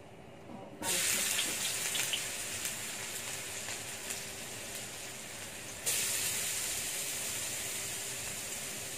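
Minced garlic sizzling in hot oil in a stainless steel wok: the sizzle starts suddenly about a second in as the garlic goes in, jumps up again sharply about five seconds later, then slowly eases.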